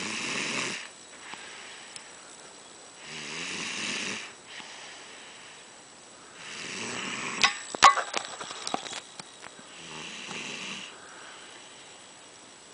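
A man snoring: four long, noisy snores about three seconds apart. A cluster of sharp clicks, the loudest sounds, comes just after the third snore.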